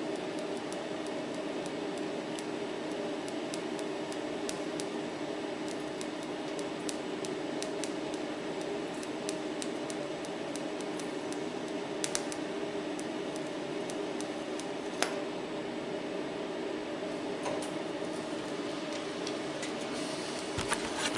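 MIG welder arc crackling in irregular spatters as a patch is welded into a pickup's rusted sheet-metal inner fender, over a steady hum. The crackle thins out about three quarters of the way through as the welding stops.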